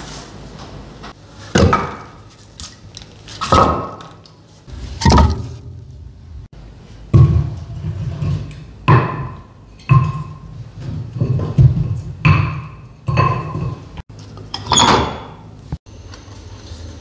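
A series of about a dozen sharp knocks and thunks, spread out, several with a short ringing tone.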